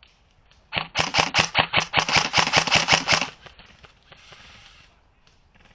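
Airsoft rifle firing a rapid string of shots, a fast even run of sharp clicks lasting about two and a half seconds, starting just under a second in.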